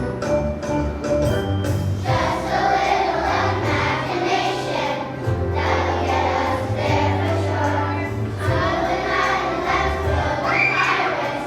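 Children's choir singing a song over an instrumental accompaniment; the accompaniment plays alone for about the first two seconds before the voices come in.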